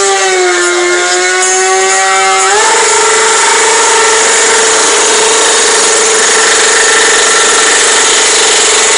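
Motorcycle engine held at high revs during a fire burnout, the rear tyre spinning in flames on the pavement: a steady, loud engine note that steps up in pitch about two and a half seconds in and then holds.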